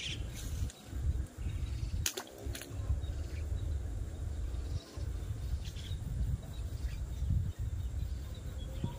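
Outdoor ambience at a pond's edge: a steady low rumble, with one sharp click about two seconds in.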